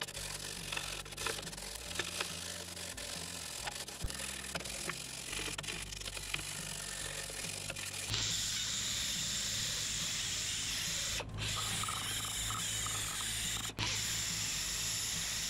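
A hand wire brush scratches and scrubs surface rust and old gasket material off a cast exhaust flange, cleaning the sealing face for a new gasket. About eight seconds in, a handheld grinder with an abrasive disc starts and runs with a steady hiss against the flange, cutting out briefly twice.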